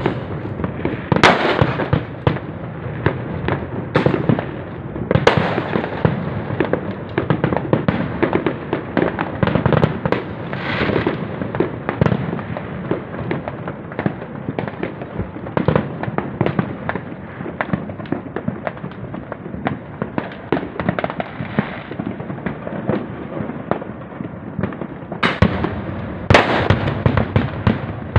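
Aerial fireworks display: a continuous barrage of shell bursts and crackling, with louder bangs about a second in, around four to five seconds in, and twice near the end.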